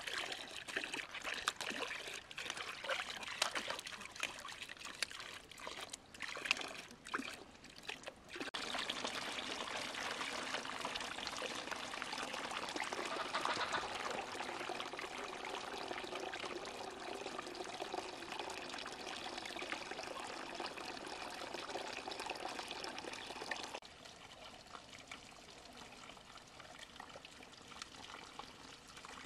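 Water trickling and splashing unevenly, then a steady pour of water that runs for about fifteen seconds and cuts off suddenly, leaving a faint trickle.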